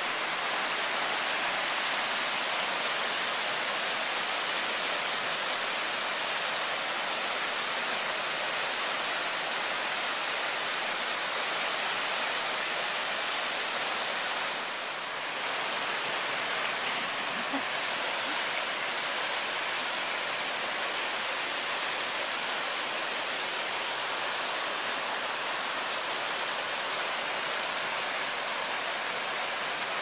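Small woodland waterfall and stream rushing over rocks: a steady hiss of falling water that dips briefly about halfway through.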